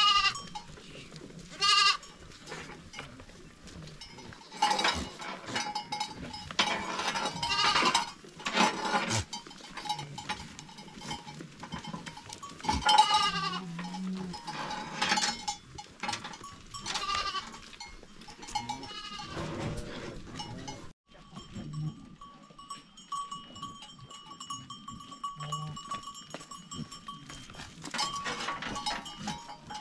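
A herd of domestic goats bleating, with many separate calls, some overlapping. In the latter part a thin steady ringing tone runs under the calls.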